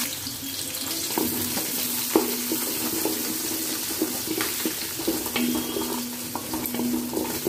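Small onions sizzling as they are sautéed in hot sesame oil with mustard seeds, fenugreek and dried red chillies, stirred with short scrapes and taps against the pan.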